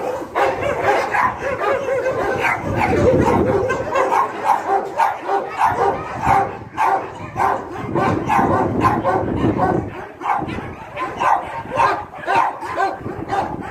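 A pack of dogs barking and yipping, many voices overlapping without a break.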